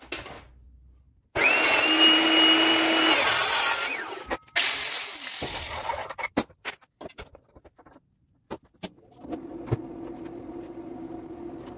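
Metal-cutting circular saw cutting steel for about two seconds with a steady high whine that drops away as the blade winds down, then a shorter second burst of cutting. Scattered clanks and knocks of metal being handled follow, and a steady low hum starts near the end.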